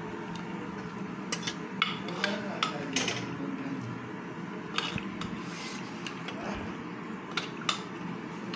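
Metal ladle clinking and scraping against an aluminium pressure cooker and a steel bowl as dal is served, with a series of irregular light clinks over a steady low hum.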